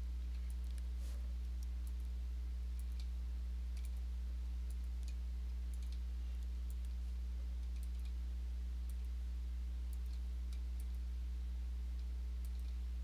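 Computer mouse clicking now and then, faint and irregular, as holes are picked one by one, over a steady low hum.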